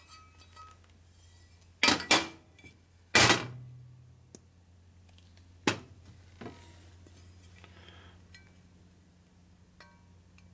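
The aluminium cam cover of a 1961 Harley-Davidson XLCH Sportster being handled and set down on a steel workbench: about five sharp metal clanks, the loudest about three seconds in with a short ring, over a steady low hum.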